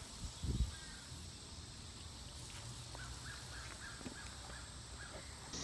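A couple of soft bumps from the phone being handled in the first second, then faint outdoor ambience with a few short, soft bird calls.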